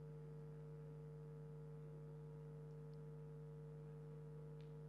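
Faint steady electrical hum: two constant tones, one low and one higher, over quiet room tone, with a faint tick near the end.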